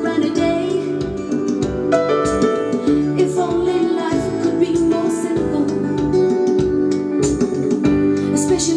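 Music: a song with keyboard and a steady beat.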